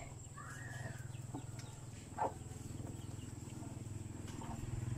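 Faint chicken calls: a short call about half a second in and a brief cluck about two seconds in, over a steady low hum.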